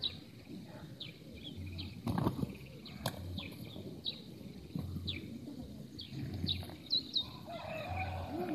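Two roosters fighting, wings flapping and beating in a loud burst about two seconds in, with a sharp knock a second later. Short, high bird chirps repeat throughout.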